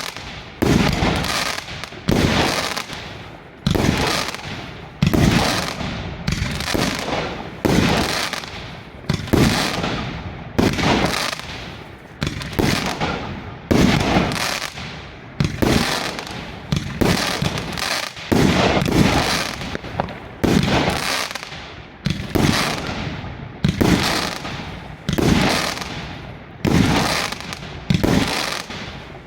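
Svea Fireworks 117X50 firework cake firing: a steady series of loud bangs, about one a second, each fading out before the next.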